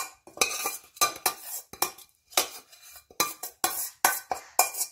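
Metal spoon scraping and knocking against the inside of a stainless steel pan in a run of short, sharp strokes, about two a second, clearing out the last of a spiced oil tempering.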